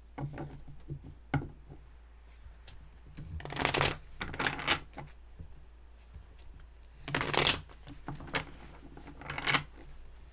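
Tarot cards being shuffled by hand: several short rustling bursts of cards sliding, the loudest about four seconds in and again past seven seconds.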